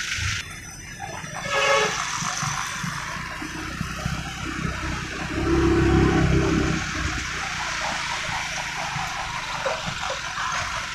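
Road and engine noise from inside a moving vehicle in town traffic, with a steady hiss of wind and tyres and a low rumble. A short rising tone comes near two seconds in, and the low engine rumble swells louder around six seconds.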